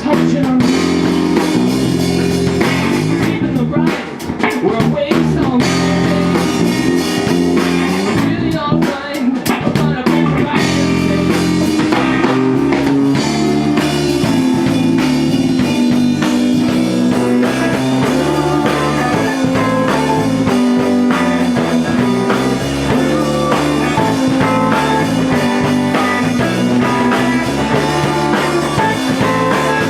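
Live progressive rock band playing an instrumental stretch of a song, with guitar, bass and drum kit.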